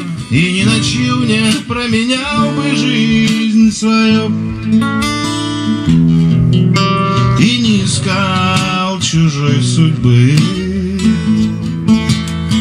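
Music: acoustic guitar playing with a singing voice over it.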